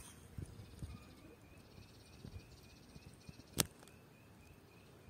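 Faint outdoor insect sound: a rapid high trill for the first few seconds and a steady series of short repeated chirps, about three a second. There are a few low knocks in the first second and one sharp click about three and a half seconds in.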